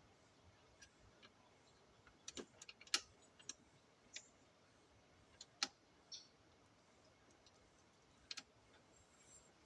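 About a dozen sharp clicks and taps at irregular spacing, the loudest about three seconds in and again past five seconds, from hard parts being handled over near silence.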